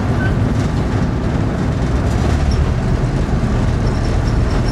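Class 47 diesel locomotive's Sulzer twelve-cylinder engine running steadily, heard inside the cab, with a low rumble of wheels on track as the train moves.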